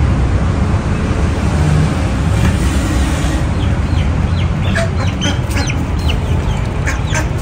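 Poultry in a yard calling, with short, high chirps and clucks that become frequent from about halfway through, over a steady low rumble.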